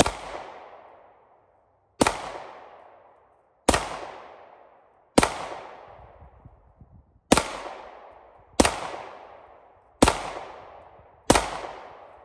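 Ruger SR9 9mm pistol fired eight times, one shot every one to two seconds, each report echoing and fading over about a second.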